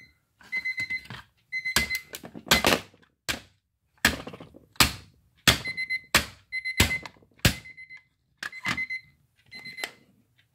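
Electronic alarm clock beeping in short bursts of rapid, high-pitched beeps while it is struck hard about a dozen times. The beeping stops near the end.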